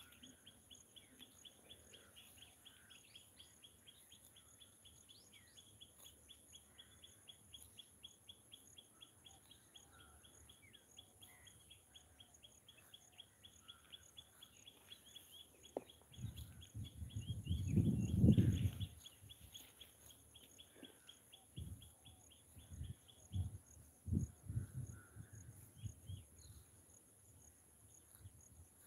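Outdoor wildlife ambience: insects keep up a steady high chirring and a fast, regular ticking call that stops about two-thirds of the way through, with scattered bird calls. Just past halfway a loud, low, noisy rumble lasts a few seconds, followed by several short low thumps.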